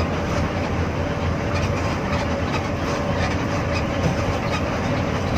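Inside an intercity coach cruising on the highway: steady engine drone and road noise, with a faint steady whine and light ticks and rattles from the cabin.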